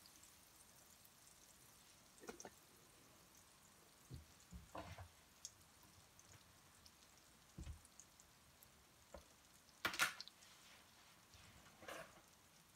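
Butter melting in a nonstick frying pan, giving occasional scattered pops and crackles over near silence, the loudest about ten seconds in.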